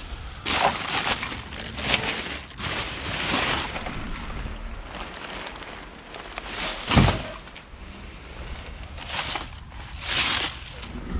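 Plastic bin bags, wrappers and paper rustling and crinkling in bursts as gloved hands rummage through rubbish, with one heavy thump about seven seconds in.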